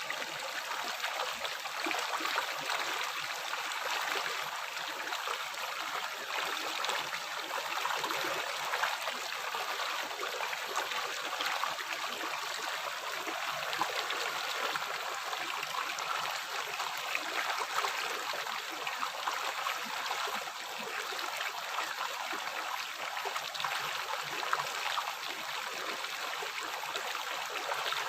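A river flowing steadily: an even rush of moving water with a trickling, gurgling texture and little deep rumble.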